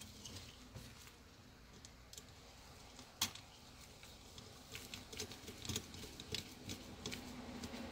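Faint small clicks and taps of a headlight projector's mounting brackets and screws being handled and worked with a Phillips screwdriver, with one sharper click about three seconds in and a run of quick clicks in the second half.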